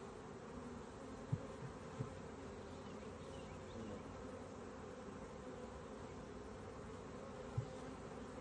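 Honeybees buzzing steadily around an opened hive. A few light knocks come about one and a half and two seconds in, and another near the end.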